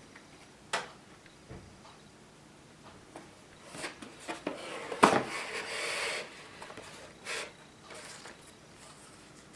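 Handling noises from a 3D-printed plastic model gun: a sharp click under a second in, a rustling, scraping stretch with a loud click about five seconds in, and another click near the end.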